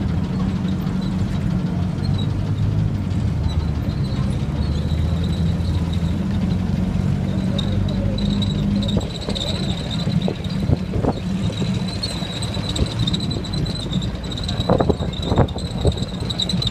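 Six-cylinder petrol engines of WWII armored cars, an M3A1 scout car and an M8 Greyhound, running as they drive slowly past, a steady low rumble. About halfway through the rumble drops and a thin high steady whine comes in, with a few short sharp knocks near the end.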